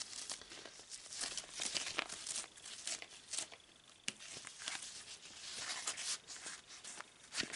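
Soft fabric doll boots with satin ribbons handled close to the microphone: irregular rustling with scattered small taps, and one sharp click about four seconds in.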